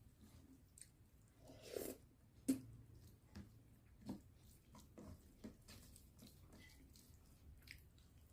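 Quiet, wet eating sounds of a person chewing chicken curry and masala poori: scattered small mouth clicks and squishes, the sharpest a click about two and a half seconds in.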